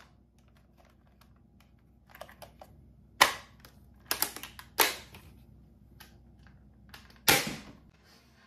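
Plastic mechanism of a Nerf Rival blaster clicking and clacking as it is handled and primed: scattered light clicks, then sharper clacks, with the loudest snap near the end.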